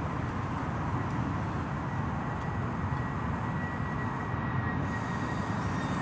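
Steady rumble of motorway traffic.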